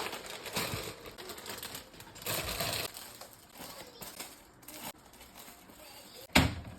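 Grocery packaging being handled and put away: irregular rustling, crinkling and light clattering clicks, with a loud thump near the end.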